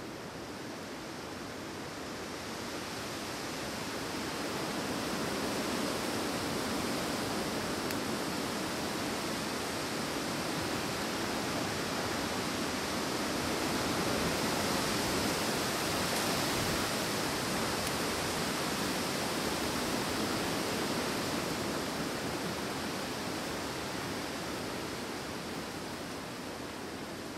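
Wind blowing through forest trees: a steady rush of noise that builds over the first few seconds, holds strongest through the middle and eases near the end.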